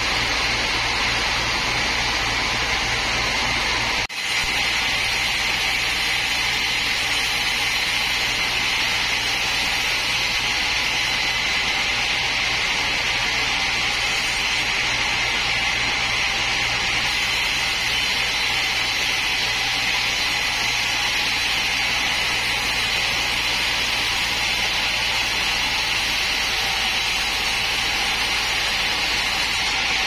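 Large sawmill band saw running steadily with a high hiss and a low hum, its blade cutting a log. The sound breaks off for an instant about four seconds in.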